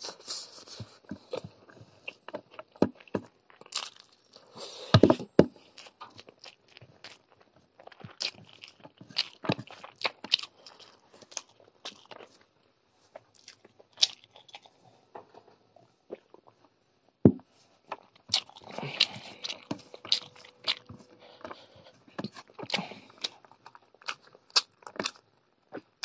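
Close-miked eating with the hand: wet chewing, lip smacking and crunching, fingers working rice and chicken curry on a plate, with scattered sharp clicks and a couple of louder knocks.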